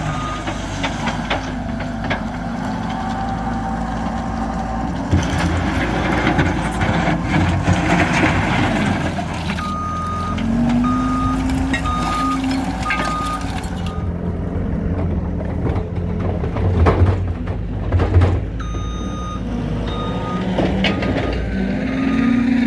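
Heavy equipment's backup alarm beeping in an even rhythm, in two spells, over a running diesel engine, with several loud clanks and crashes of debris being moved.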